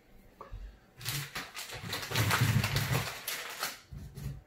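Rustling and clattering of things being rummaged through for about three seconds, starting about a second in, with a few low knocks underneath.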